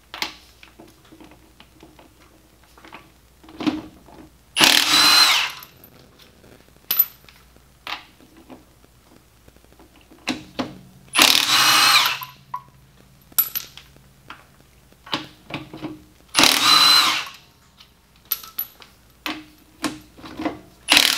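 Cordless impact wrench run in reverse, hammering a wheel's lug nuts loose: three bursts of about a second each, roughly five, eleven and seventeen seconds in, with a fourth starting at the very end. Small clicks and knocks of the socket being fitted to the next nut come between the bursts.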